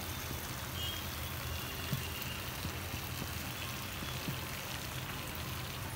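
Food sizzling steadily in a frying pan, with a couple of light clicks as vegetables are spooned over sauced bread cubes.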